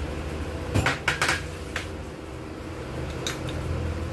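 Metal spoon clinking and scraping against a ceramic bowl while scooping out chopped onion: a few sharp clinks about a second in and one more near the end, over a steady low hum.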